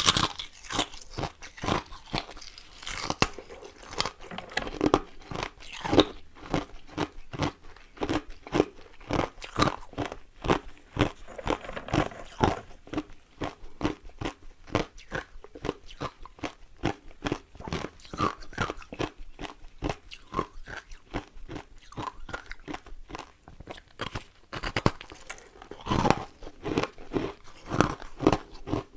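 Ice cubes being bitten and chewed close to the microphone: a continuous run of sharp, irregular crunches, several a second.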